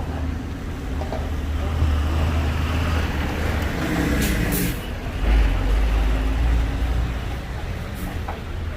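Heavy road vehicle, a bus or truck, running past with a deep engine rumble. There is a short hiss about four seconds in, and the rumble grows deeper and louder just after.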